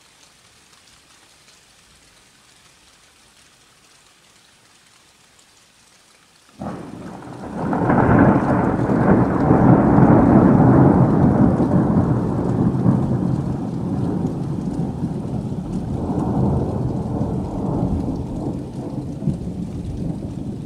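Thunder over the steady hiss of rain: a sudden crack about six and a half seconds in, then a long rolling rumble that swells again later on and slowly eases.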